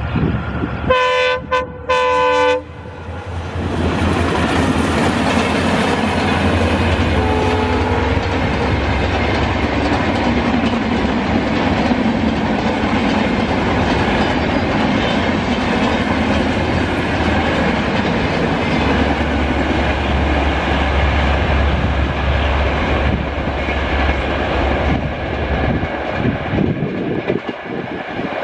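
A DLW-built high-horsepower diesel locomotive gives two short chord-horn blasts about a second in, then passes with its train: a low engine drone under the rumble of coaches and wheels clicking over rail joints, easing off near the end as the coaches go by. A fainter short horn note sounds a few seconds after the first blasts.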